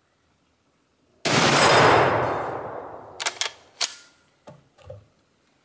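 Type 99 Arisaka bolt-action rifle firing one 7.7 mm shot a little over a second in, the report dying away over about two seconds. It is followed by a few short metallic clicks and clacks as the bolt is worked.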